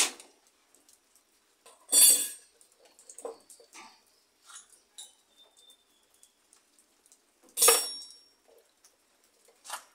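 Metal tools and parts clanking on and inside an opened clothes dryer's sheet-metal cabinet: two loud clanks, about two seconds in and near eight seconds, the second with a short metallic ring, and lighter clinks between.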